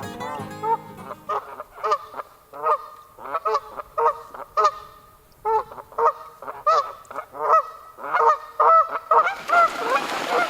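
A group of large birds giving loud, repeated honking calls, about two a second, with a short rushing noise near the end.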